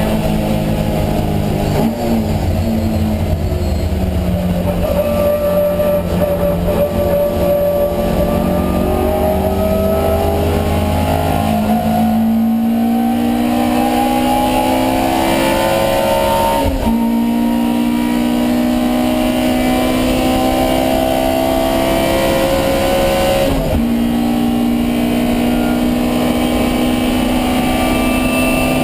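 Alfa Romeo Giulia 1600's twin-cam four-cylinder race engine at full effort, heard onboard. Its pitch climbs and falls with the revs, with sharp breaks at gear changes about two seconds in, past halfway, and again later, each followed by a steady climb in pitch.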